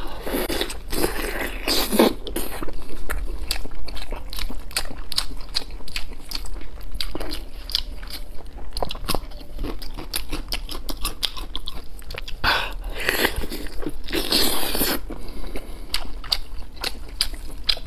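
A person biting into and chewing braised pork belly: a run of wet mouth clicks, smacks and crunches, with a few louder bites.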